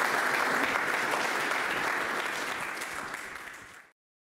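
Audience applauding with dense clapping, which tapers off slightly and then cuts off suddenly near the end.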